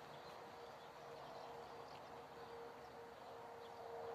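Faint outdoor background with a steady, thin hum that grows a little louder near the end, and faint bird or insect sounds.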